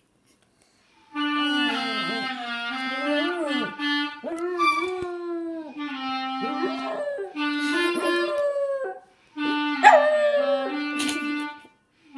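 Clarinet playing sustained practice notes while a small dog howls and whines along with it, its voice sliding up and down over the notes. The playing starts about a second in and breaks off briefly twice near the end.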